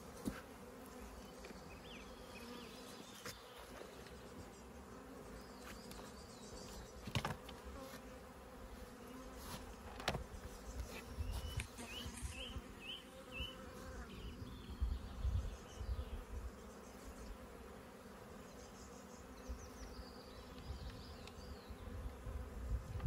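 Honeybees buzzing in a steady hum around an open hive, broken by a couple of sharp clicks.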